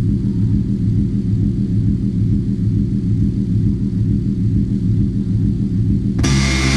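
Live electronic noise music: a dense, rumbling low drone that switches suddenly, about six seconds in, to louder harsh noise reaching into the highs, with steady buzzing tones.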